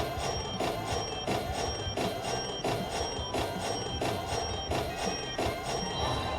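Slot machine bonus-round sound: a looping electronic jingle with a bright chime struck about three times a second, as the reels respin during the hold-and-spin bonus.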